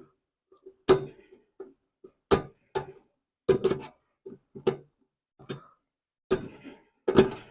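Screwdriver clicking and knocking against a stubborn old screw in the metal housing of a kerosene heater, about a dozen irregular sharp clicks and taps.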